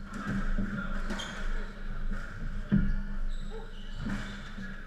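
Squash rally: a squash ball is struck by rackets and smacks off the court walls in a few sharp hits, the loudest nearly three seconds in, with short high squeaks from shoes on the wooden floor.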